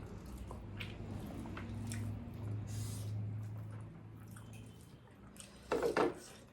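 Close-up chewing and wet mouth sounds of people eating, with scattered small clicks over a low steady hum and a louder short burst near the end.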